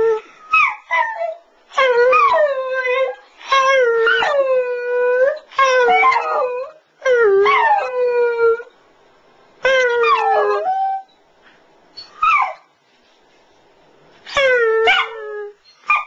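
West Highland white terrier howling: a string of about eight high howls, each a second or two long, that dip in pitch at the start and then hold a steady note, with short pauses between.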